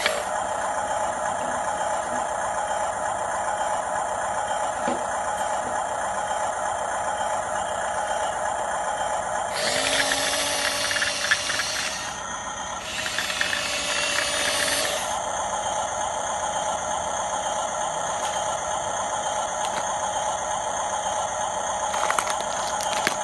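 Radio-controlled model bulldozer running, its electric drive and gearbox giving a steady whine with a light rattle from the tracks. Twice, about ten and thirteen seconds in, a couple of seconds of louder scraping and clatter break in.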